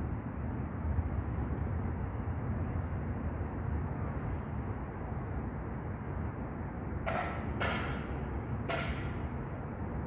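Steady outdoor background rumble with no clear single source, broken by three short hissy noises about seven to nine seconds in.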